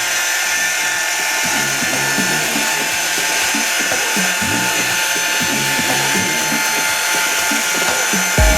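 Background music over the steady whine of a power tool, the kind of machine used to sand or polish a headlight lens. A heavy bass beat comes in near the end.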